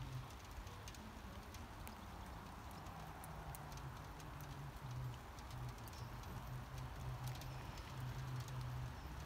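Faint light rain pattering, with scattered small ticks and a low hum that comes and goes.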